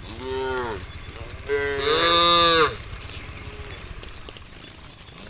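Cattle mooing twice: a short moo, then a longer, louder moo about a second and a half in.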